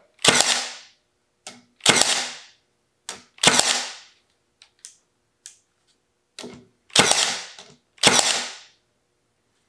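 Milwaukee M18 Fuel 18-gauge cordless brad nailer firing brads into a very hard, dry oak board: five sharp shots, each with a brief ring, three in the first four seconds and two more about a second apart near the end. A few light clicks fall in the pause between them.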